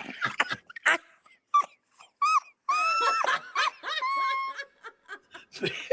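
High-pitched squealing laughter: a few breathy gasps, then a run of shrill rising-and-falling squeals, some held for about half a second.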